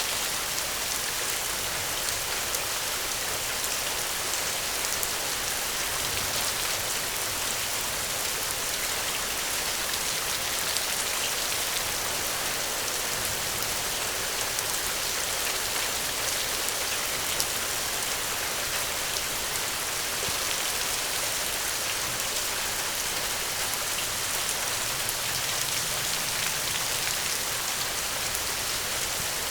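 Steady heavy rain, a dense even hiss, with a few faint sharp clicks now and then.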